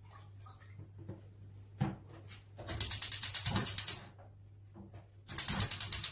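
Gas hob's electric spark igniter clicking rapidly as the burner knob is held in to light it, in two runs of about a dozen clicks a second, with a few soft knocks before them.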